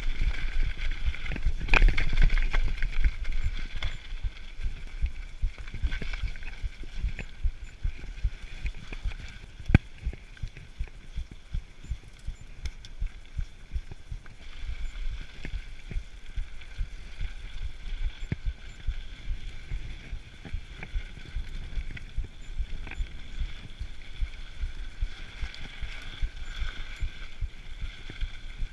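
Mountain bike riding fast down a dirt and rock trail: the tyres roll over the ground with a constant low rumble, and the frame rattles and knocks sharply over bumps many times.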